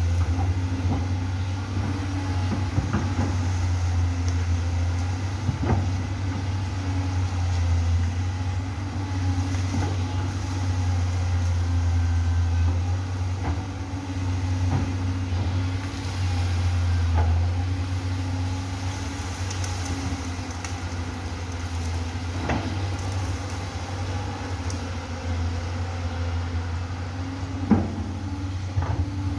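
Amphibious excavator's engine running steadily with a deep, constant hum, with a few sharp knocks now and then, the loudest near the end.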